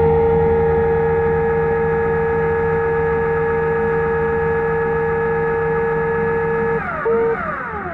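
Electric dive scooter motor whining at a steady pitch underwater. It cuts out about seven seconds in, comes back for a moment, then winds down with a falling pitch.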